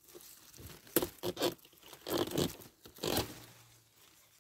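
Zucchini plant's stems and large leaves rustling and snapping as a zucchini is picked by hand: several sharp cracks and crunches amid the rustle, the last about three seconds in, then dying away.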